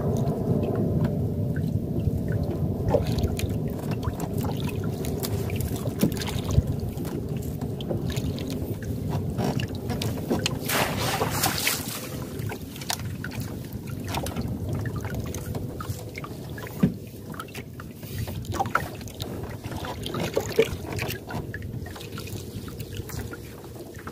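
Small boat's motor running steadily at low speed, its sound easing after about twelve seconds, with a short hiss about eleven seconds in.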